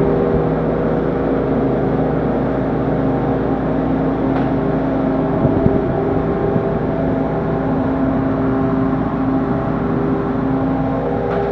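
Walk-in freezer's refrigeration fans running: a steady whirring hum with several fixed tones under it.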